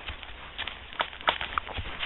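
Hooves of a gaited horse striking and scuffing through dry fallen leaves, a few irregular crunching steps over a rustling background.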